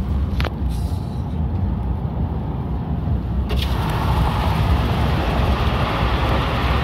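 Steady low road-and-engine rumble of a moving car, heard from inside the cabin. About three and a half seconds in there is a click, and a louder rushing noise joins the rumble.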